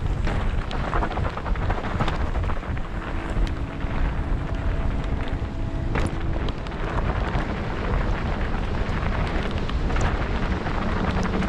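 Wind rushing over the microphone and mountain bike tyres rolling over a dirt trail at speed, with scattered sharp clicks and rattles from the bike.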